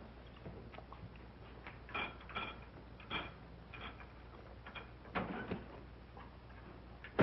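Glass and bottle being handled as a drink is poured: a few faint, irregularly spaced clinks and knocks, some with a short ring, over the film's steady hum. A heavier knock comes right at the end.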